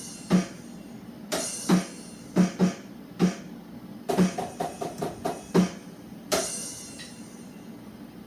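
Drums played in a loose pattern: cymbal crashes with low drum hits between them, a quick run of about seven hits around four to five and a half seconds in, then a final crash about six seconds in that rings out.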